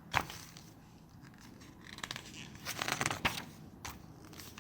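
Pages of a paper instruction booklet being turned and handled: a sharp paper crackle just after the start, then a cluster of rustles and crackles about two to three and a half seconds in.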